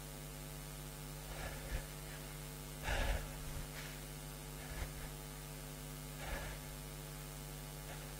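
A man's heavy breathing, a few short, sharp exhalations a second or two apart, the strongest about three seconds in, over a steady electrical hum.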